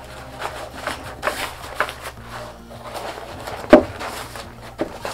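Hands folding an Onyx A/M 24 inflatable life vest into its fabric cover: fabric rustling and scraping with light taps as the Velcro is pressed shut. A sharp knock about three-quarters of the way in is the loudest sound, with a smaller one near the end.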